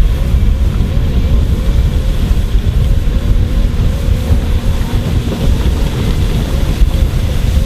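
Heavy diesel road-construction machinery running at a pavement milling job: a loud, steady low rumble with a thin whine that wavers up and down.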